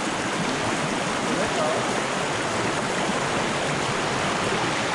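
Shallow river water rushing steadily over rock slabs and stones in small rapids.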